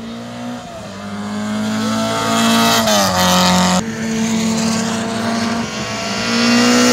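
A car's engine under hard acceleration, coming closer and getting louder. The pitch climbs, falls sharply at a gear change about three seconds in, then climbs again.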